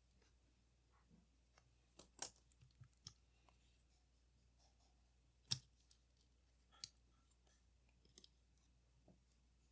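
Small sharp clicks and taps of tools and metal parts being handled while a Leica IIIF camera is taken apart, about seven scattered over the stretch, the loudest about two seconds in and again about halfway through.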